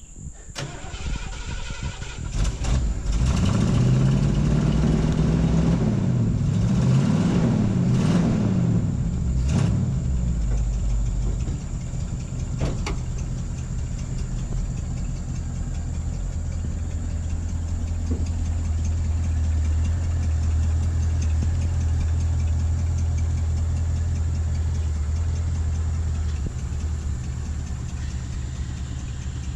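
1978 Ford F100 pickup's engine revving up and down under throttle for several seconds as the truck is moved, then running at a steady, even low speed.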